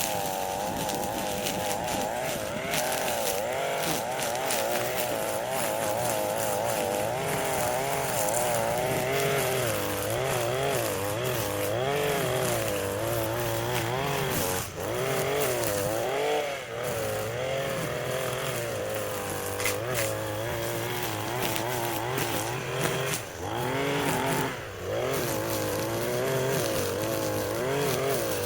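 Small gas engine of a handheld landscaping power tool running at high speed. Its pitch wavers up and down as it works under changing load, and it dips briefly a few times in the second half.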